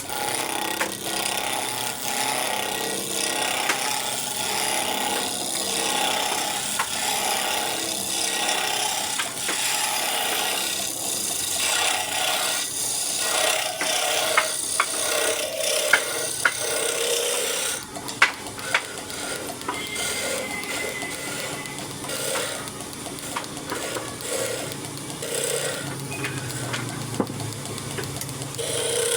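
A hand tool scraping across wood in repeated strokes, about one a second, with a few sharp clicks and knocks in the second half.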